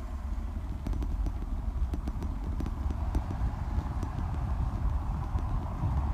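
A moving GoPro jolting over a brick-paved street: irregular clicks and knocks of the camera and its mount rattling on the bumps, over a steady rumble of wind on the microphone.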